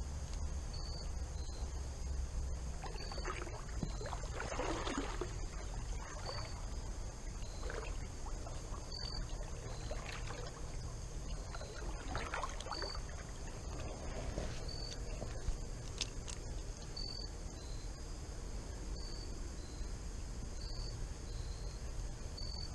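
Water sloshing in several soft swishes as a person wades through a shallow creek, over a steady low rumble of moving water. Short high insect chirps recur about once a second.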